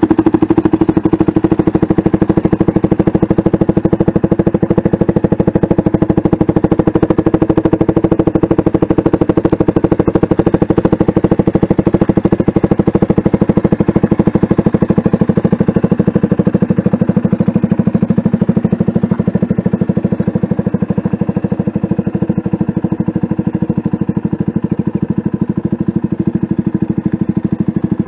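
CFMoto 300SS's single-cylinder engine idling steadily through an aftermarket slip-on exhaust, an even, rapid pulse that holds its pitch throughout.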